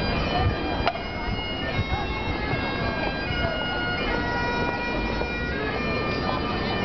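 Bagpipes playing a tune over a steady drone, with the chatter of passers-by underneath.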